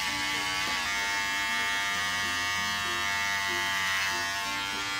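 Electric hair clipper buzzing steadily as it is run over the short hair on the side of the head, cutting an undercut.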